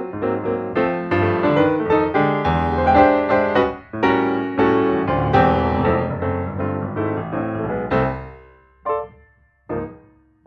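Background piano music: a quick run of notes that thins out near the end to a few separate, spaced notes.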